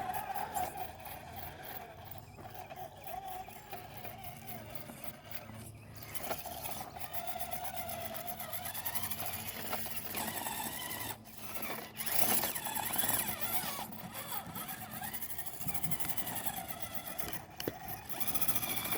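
Brushed 550-size 13-turn electric motor of an RC rock crawler whining through its gears as it drives, the whine rising and falling with the throttle. A few sharp clicks break in now and then.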